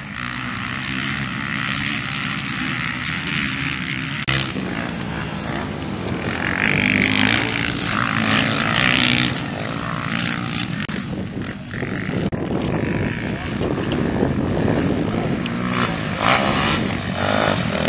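Motocross bike engines racing on a dirt track, revving up and down in pitch as the bikes accelerate and ease off. The sound grows louder around the middle and again near the end as bikes come close.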